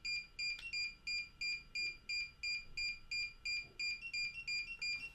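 DJI FPV Remote Controller 3 beeping rapidly in pairing mode, with short high electronic beeps about three times a second. A second, slightly higher beep joins in about half a second in.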